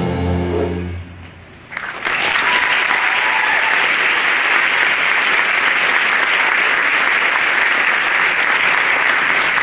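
A jazz band's last held chord of saxophones and brass fades out about a second in. After a short pause the audience breaks into loud, steady applause.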